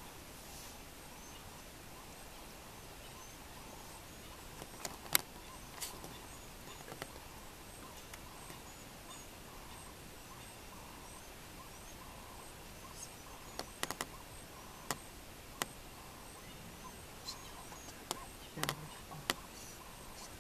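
Quiet bush ambience: a steady faint hiss with a high chirp repeating evenly, from a small bird or insect, and scattered sharp clicks, the loudest about five seconds in and several more in the second half.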